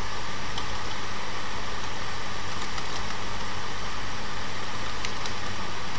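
Steady background hiss with a low electrical hum, the noise floor of a desk recording set-up, with a few faint clicks of computer keys being typed.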